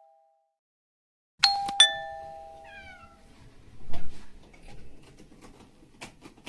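A two-tone ding-dong doorbell chime sounds about a second and a half in and rings away slowly, followed by a cat meowing a few times.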